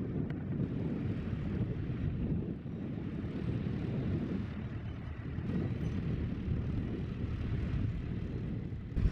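Wind buffeting the camera microphone in a low, uneven rumble, over a tractor engine running in the background.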